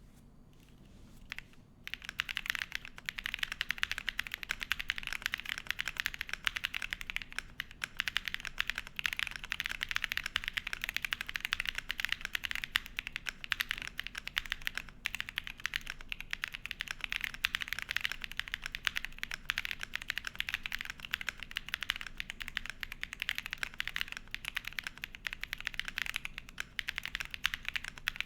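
Fast, continuous typing on a Qwertykeys QK75 Nice Dream mechanical keyboard with an aluminium plate, Ashen switches and PBT dye-sub keycaps. A rapid stream of key clacks starts about two seconds in.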